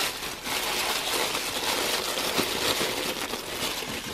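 Black tissue paper rustling and crinkling as hands dig through it in a cardboard box.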